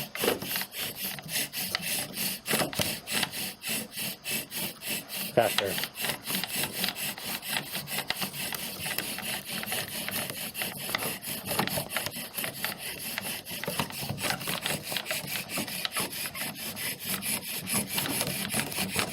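Friction fire drill: a wooden spindle spun back and forth against its wooden hearth and base under rubber-band pressure, making a steady, rhythmic wood-on-wood rubbing. This is the grinding that builds heat toward smoke and an ember.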